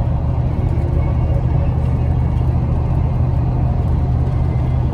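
Camper van driving on the road: a steady low engine and road drone with tyre noise.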